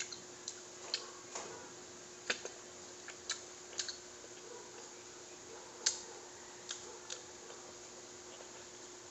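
Irregular sharp clicks and crackles of rambutan rind being peeled by hand and the fruit eaten, about a dozen, mostly in the first seven seconds. A faint steady hum runs underneath.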